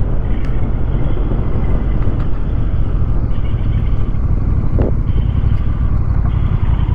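Honda Rebel 1100's parallel-twin engine running steadily at low speed as the motorcycle slows to park.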